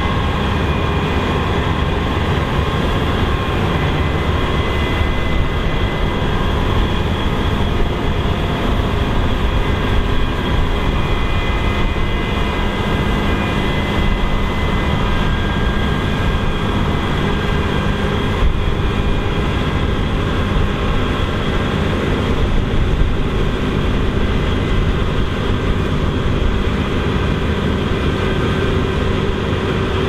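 Claas Lexion 8900 combine harvester working under load while harvesting: a loud, steady mechanical din from its Mercedes-Benz six-cylinder diesel and its threshing and straw-spreading machinery, with several steady whining tones on top. A lower hum grows stronger near the end as the combine comes closer.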